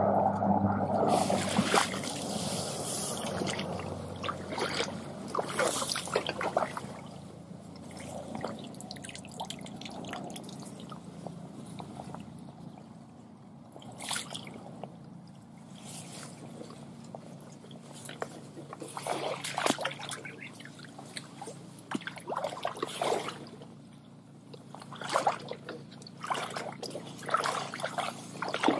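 Water splashing and trickling in a shallow stream as someone wades and works a hand net through it, in irregular bursts, with a few louder splashes near the end.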